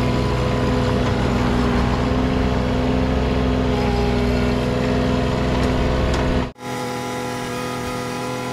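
Bobcat 323 mini excavator's diesel engine running steadily, heard close from the operator's seat. About six and a half seconds in the sound drops out abruptly and comes back thinner, with much less low rumble.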